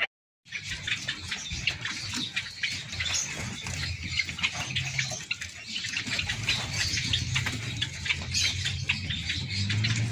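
Many small caged birds chirping at once in a dense, constant twittering, with a low steady hum underneath.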